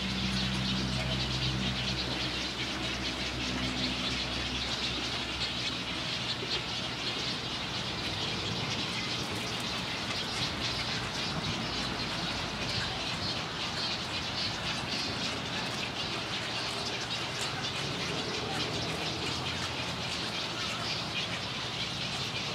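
A colony of nesting birds calling at a rookery: a dense, continuous chatter of many overlapping calls. A low steady hum runs underneath for the first several seconds.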